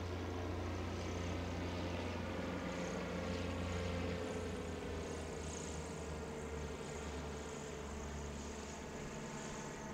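Goodyear Zeppelin NT airship's propeller engines droning steadily as it flies low overhead. The drone is loudest about four seconds in, then eases slightly.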